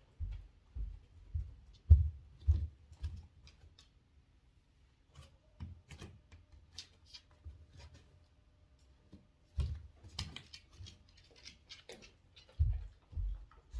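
Irregular footsteps on an indoor floor, low thuds mixed with light clicks and taps, as a dog is walked on a lead around a room. The steps bunch up near the start and again near the end, with a quieter stretch in the middle.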